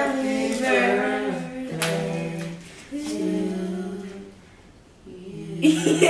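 Several voices singing together without instruments, holding long notes that slide between pitches. A short, louder burst of noise comes near the end.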